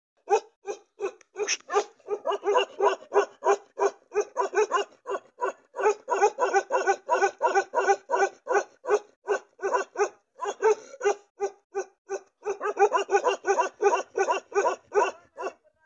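Large Kashmiri-Ladakhi mountain dogs barking rapidly and without pause, about three deep barks a second, the barks thinning out briefly a couple of times.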